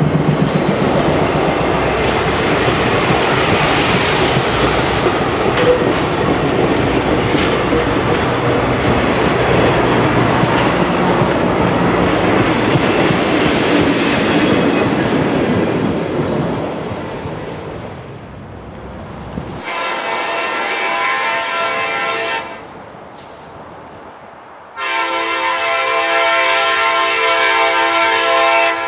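Passenger train cars rolling past with a steady clatter of wheels on rail, fading away over the first half. Then an Alco C420 diesel locomotive's horn sounds two long blasts of a chord of several tones, the second longer and louder.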